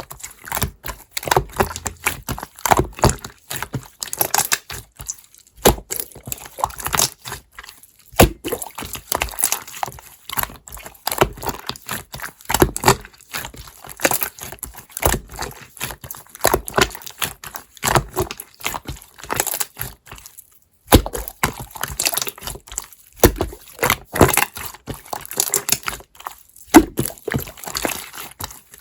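Slime being squished, pressed and stretched by hand, making a dense run of irregular wet clicks, pops and crackles. There are short pauses about five seconds in and again about twenty seconds in.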